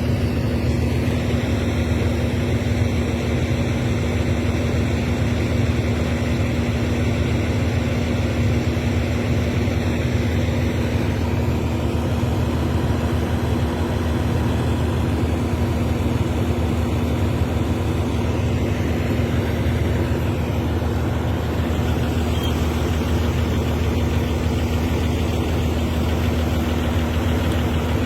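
Heavy diesel engine running steadily at low revs, a constant low hum with no revving.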